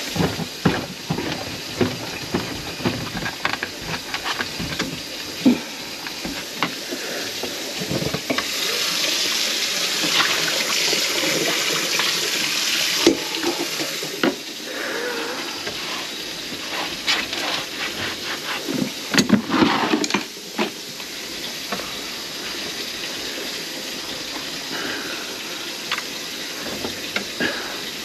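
Water running from the kitchen faucet into the sink and down its freshly cleared drain, a steady rush that grows louder for several seconds about a third of the way in. Scattered knocks and clatter, thickest about two-thirds of the way in, come from things being handled under the sink.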